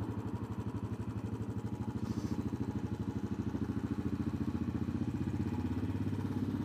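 Motorcycle engine running at low revs with an even pulsing exhaust beat, getting a little louder about two seconds in.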